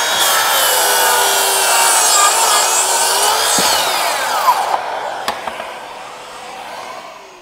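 Makita 9-1/4-inch 36V cordless circular saw riding a guide track, making a long bevel cut along a 2x6 board: the motor whines steadily under load through the wood for about four and a half seconds. Its whine then falls as the blade spins down, with a click about five seconds in and a fading hiss after.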